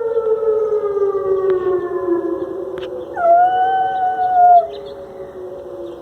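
A siren winding down in a long, slowly falling tone while a dog howls along, one howl of about a second and a half near the middle that is the loudest sound and breaks off suddenly.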